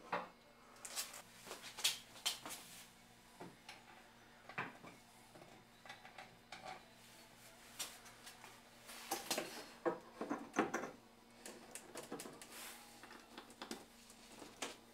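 Scattered clicks, knocks and light metal clatter of a hand-forged sheep wagon brake lever and its fittings being worked by hand, with a busier run of knocks just past the middle.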